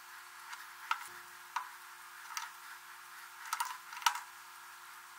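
Hot soldering-iron tip and screwdriver worked against a red plastic strobe lens while it is heat-reshaped, giving about half a dozen sharp, irregular clicks and ticks.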